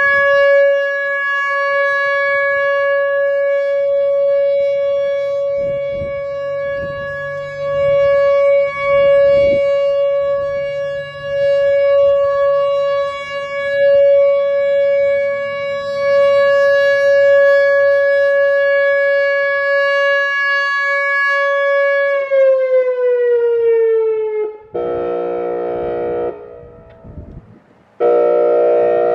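Whelen Vortex R4 electronic outdoor warning siren sounding its steady alert tone, one high unwavering pitch that swells and fades in loudness as the head rotates. About 22 seconds in, the tone glides downward and stops. It then switches to its airhorn tone: two harsh, buzzy blasts with a short break between them.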